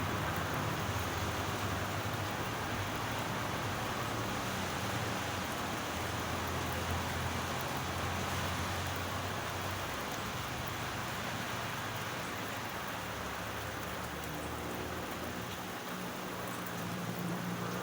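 Steady rain falling and pattering on surfaces, an even hiss with no breaks, over a low steady hum that shifts slightly near the end.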